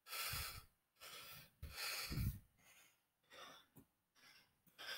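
A man's faint breaths into a close microphone, several short puffs of breath in a row, with a light click a little before the end.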